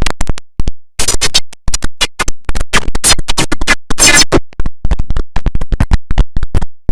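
The IBM OS/2 Warp 3 shutdown sound, heavily effect-edited into rapid chopped-up stutters: short loud slices of sound with abrupt silent gaps between them, several a second, giving a scratch-like sound.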